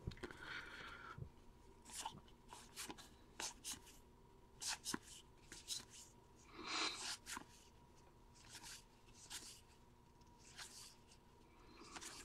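Baseball trading cards being handled and flipped through one by one: a series of faint, irregular short swishes and slides, the longest and loudest about seven seconds in.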